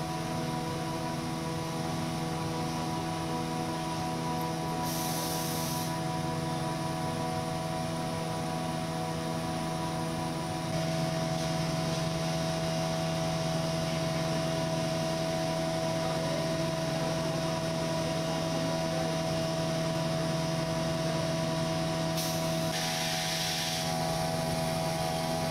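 Oxair 500 LPM PSA oxygen generation plant running: a steady machine hum made of several fixed tones, which gets a little louder about halfway through. Two short bursts of hiss come through, one about five seconds in and one near the end.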